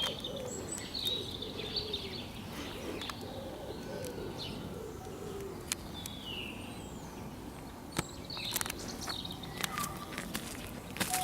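Rocky Mountain goat whining: a low, wavering call over the first three seconds or so, with birds chirping over it and a run of sharp clicks near the end.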